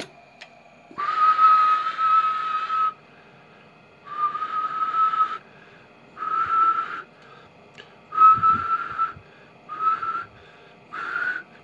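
A person whistling six short steady notes into the microphone of a Harris RF-301 HF transceiver in single-sideband (LSB) mode. It is a whistle test: each whistle drives the transmitter's output up on the wattmeter. The first note is the longest, and the last rises a little in pitch.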